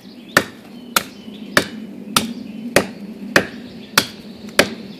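Cuma battle cleaver chopping into the trunk of a live, wet pine tree: eight sharp blade strikes in an even rhythm, a little more than half a second apart.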